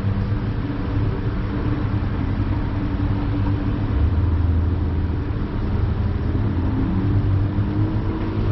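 Car engine running with steady road rumble, a low hum whose pitch climbs slightly near the end as the engine speeds up.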